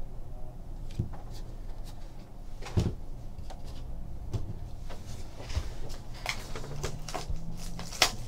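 Cardboard trading card hobby box handled on a table: scattered knocks and clicks with light rustling between them, the sharpest about three seconds in and just before the end.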